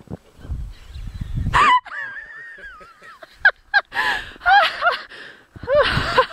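Animal calls: a brief burst of noise about a second and a half in, then a long wavering whine and a run of short yelps that rise and fall in pitch.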